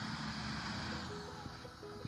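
Steady engine noise with a broad rush, fading about a second in as background music with a simple stepping melody comes in.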